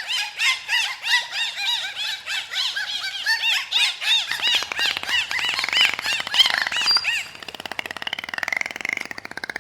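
An animal giving a fast run of high, squeaky, arching calls, several a second. After about seven seconds they give way to a raspy, buzzing chatter.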